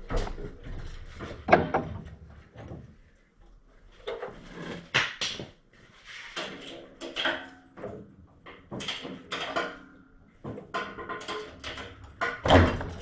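Hydraulic cherry-picker engine hoist being pumped by hand to lift an engine. It gives a string of clunks, clicks and creaks every second or so, with the loudest knocks about a second and a half in and near the end.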